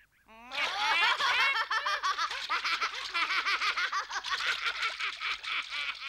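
A cartoon boy's voice laughing uncontrollably, a long run of rapid, high-pitched laughs starting about half a second in. He is being tickled by a carp.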